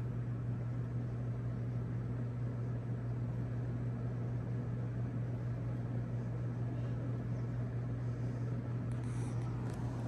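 SMC DC42 ceiling fan running, a steady low motor hum under an even rush of moving air.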